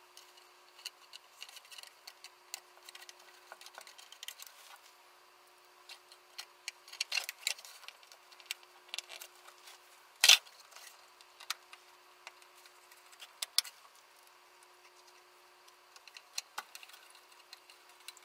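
Scattered small metallic clicks and taps as screws and a screwdriver are handled on a power supply's sheet-metal case, with one sharper click about ten seconds in.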